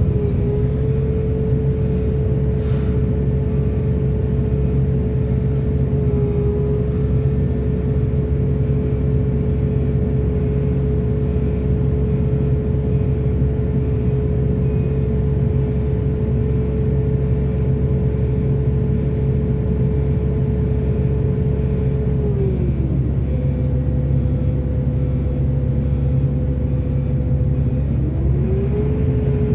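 A large hydraulic excavator's diesel engine runs steadily with a whine on top. The whine drops in pitch a little past two-thirds of the way through and glides back up near the end.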